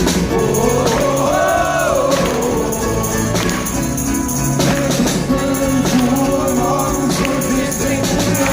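Live pop-rock band music: drums keeping a steady beat under held bass and keyboard notes, with voices singing a wordless 'oh-oh' melody.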